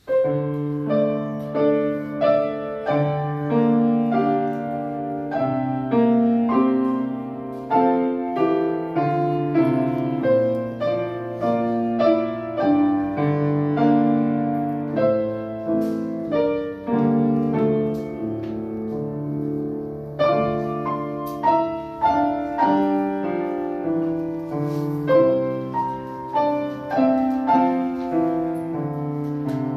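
Solo piano playing a piece: a melody over low held bass notes, starting at once and running on evenly.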